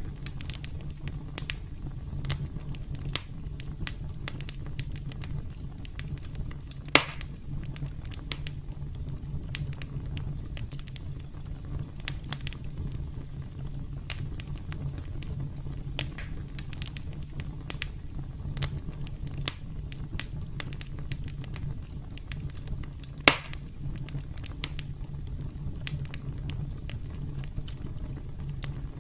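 Wood campfire burning with a steady low rumble and constant scattered crackling, with two louder, sharp pops, one about a quarter of the way in and one about three-quarters of the way in.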